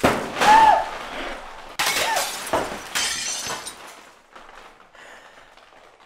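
Water splashing hard against a full-face helmet and the person wearing it, in several bursts over about three seconds, then dying away.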